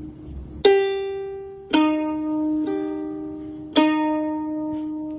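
Ukulele strings plucked by a cat's paw: four separate, uneven plucks about a second apart, each note left ringing and fading, the third one softer.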